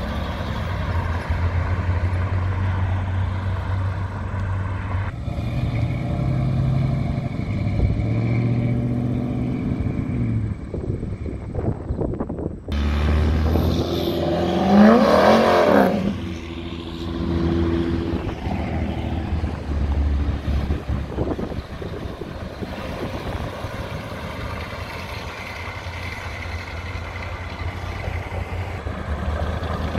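Cars driving past one after another, engines running and pulling away, with the sound cutting abruptly from one car to the next several times. The loudest is a pass about 14 to 16 seconds in, its engine note rising and then falling.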